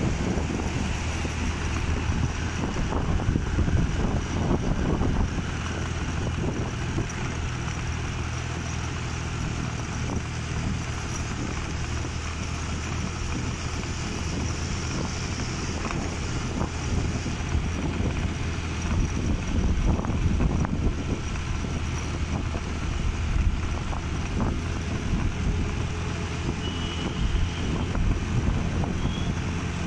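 Motorcycle engine running steadily while riding at cruising speed, with wind buffeting the microphone in irregular gusts.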